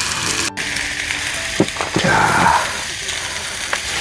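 Lamb ribs sizzling in a cast iron grill pan: a steady frying hiss, cutting out for an instant about half a second in.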